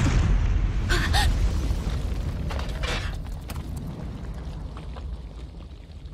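Deep rumbling explosion sound effect dying away, with a few short sharp cracks about a second in and again near three seconds.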